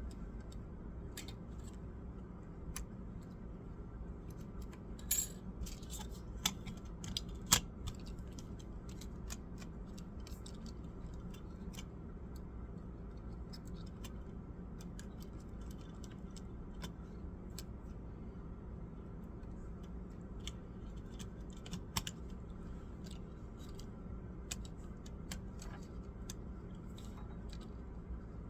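Scattered small clicks and taps of plastic and metal laptop parts and small tools being handled, a few louder snaps among them, over a steady low hum.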